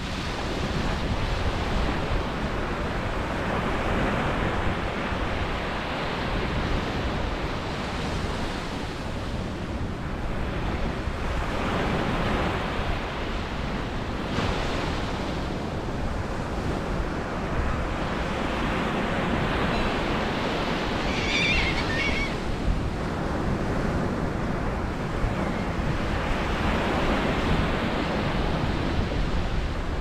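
Ocean surf breaking on a sandy beach and washing up the shore, swelling and easing every few seconds. About two-thirds of the way through, a gull gives a short call.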